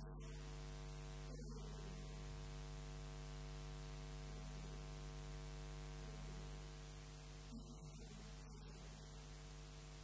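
Steady electrical mains hum running through the recording, with faint, indistinct voice traces underneath in the second half.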